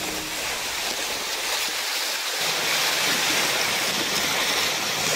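Water rushing and splashing past the hulls of a Tricat 25 trimaran moving at speed. From about halfway a steady low hum of its outboard motor joins in.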